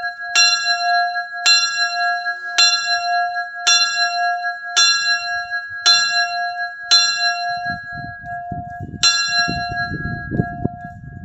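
Small bronze church signal bell swinging, its clapper striking about once a second, eight strokes in all, with a longer gap before the last one about nine seconds in as the swing dies down. The bell's tone rings on after each stroke. A low rumble comes in near the end.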